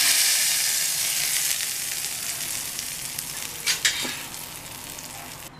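Hot tempering oil with mustard seeds and dried red chillies sizzling as it is poured onto a bowl of ground curry leaf chutney, loud at first and dying away over a few seconds. A few light clicks come about four seconds in.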